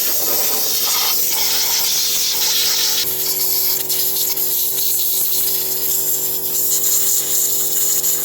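Small power tool running steadily while cleaning a gasket mating surface on an outboard motor housing. A loud hiss sits over a steady hum, the note changes about three seconds in, and it cuts off suddenly at the end.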